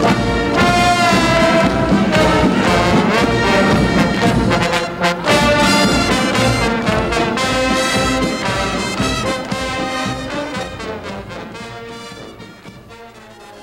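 Brass marching band playing a march, with trumpets and trombones over a steady bass-drum beat, fading out near the end.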